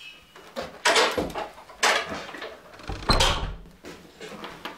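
Wooden plank door being opened and pushed shut, a few knocks and scrapes ending in a low thud about three seconds in.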